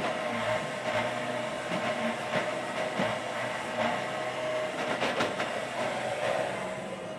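Yanmar mini excavator's diesel engine running under load with a steady, wavering hydraulic whine as the upper body swings and the bucket digs. Scattered sharp clanks and knocks from the bucket and pins working against rock.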